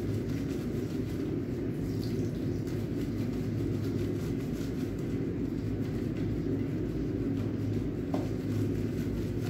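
A steady low hum, with soft wet rubbing as a lathered cat's fur is scrubbed by rubber-gloved hands.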